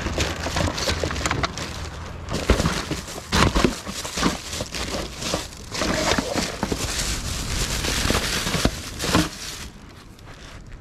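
Plastic bags of trash rustling and crinkling, with sharp knocks and scrapes, as they are stuffed through the opening of a dome-lidded trash can.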